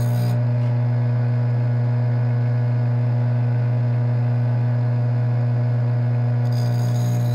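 Bench grinder motor running with a steady low hum, turning buffing wheels.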